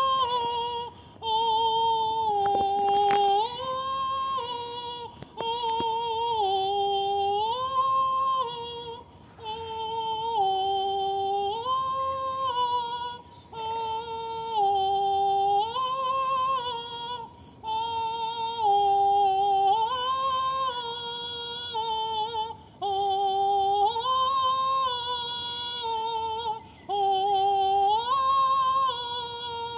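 A woman singing wordless, sustained vowels in a high, clear voice, moving back and forth between a lower note and one a step higher, the phrase repeating about every four seconds with short breaths between.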